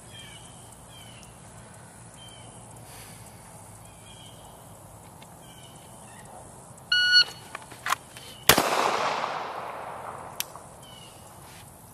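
Electronic shot-timer start beep, then about a second and a half later a single 9mm shot from a Glock 19 pistol drawn from a concealed holster, ringing out with a long decaying echo. A couple of light clicks come between the beep and the shot.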